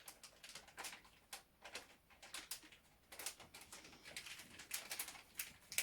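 Faint, irregular clicks and crinkling from handling ASP Model 100 handcuffs while a chocolate bar wrapper is worked into them as a shim.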